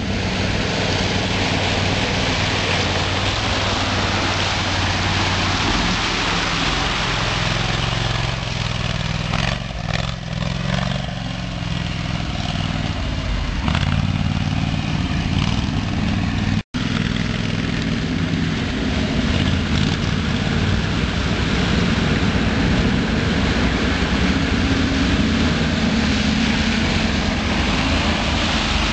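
Amphibious 6x6 ATV engine running with a steady drone. The sound drops out for an instant about two-thirds of the way through.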